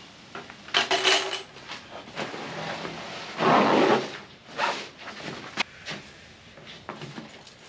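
Rustling and scraping of a folded inflatable tent and its nylon carry bag being pulled apart and laid out on a concrete floor, in a few irregular bursts, the loudest about three and a half seconds in.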